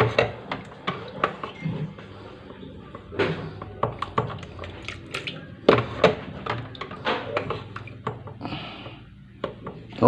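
Plastic rice ladle clattering and scraping in a refrigerator's plastic defrost-water drain tray, scooping out meltwater to tip into a plastic basin: irregular knocks and clicks over a low steady hum.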